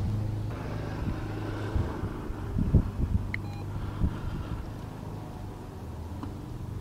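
Steady low hum of an idling car engine, with a few short knocks and thumps about two to four seconds in as a small dog moves about on the back seat at a treat-dispensing machine.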